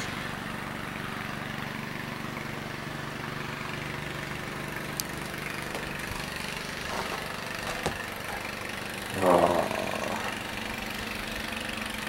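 Small snowblower engine running steadily at idle, a low even hum.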